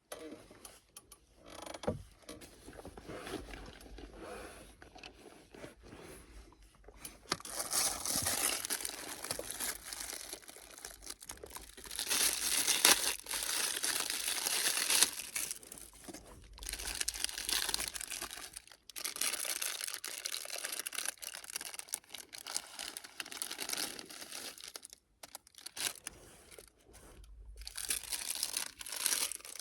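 Plastic packaging of a Thai peanut cashew salad kit crinkling and tearing as it is opened and handled. The rustling comes in irregular stretches and gets louder after the first several seconds.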